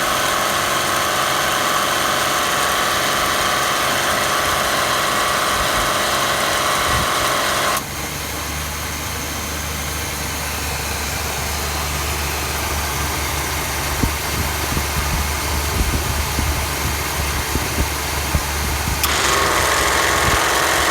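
GM A6 air-conditioning compressor running loudly over an idling engine. About eight seconds in it cuts out abruptly, leaving the low engine hum with a few light ticks, and about nineteen seconds in it cuts back in: the compressor is cycling on and off on low pressure.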